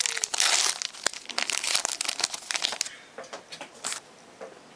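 Stack of trading cards being handled and shuffled through by hand: a dense crinkling rustle with quick clicks of card edges, thinning to a few scattered ticks after about three seconds.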